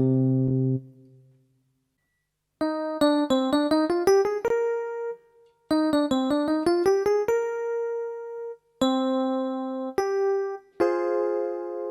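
Electric piano tone on a Casio AiX keyboard. A quick rising run of notes ends on a held note, the same phrase is played a second time, and then several sustained chords follow.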